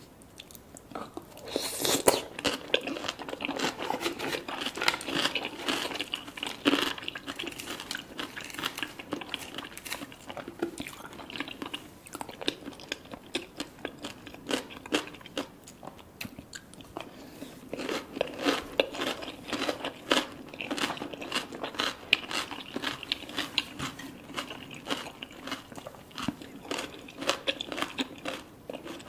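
Close-up sounds of someone biting and chewing crunchy food: dense crisp crackles and crunches that start about a second and a half in and go on in clusters of bites and chews.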